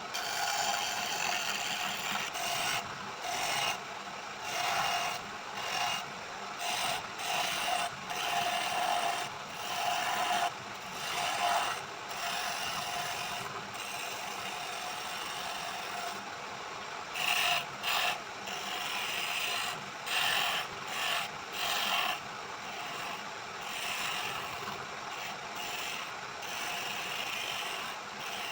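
Wood being scraped and cut by a tool in short, irregular strokes, each up to about a second long, over the steady hum of a running wood lathe.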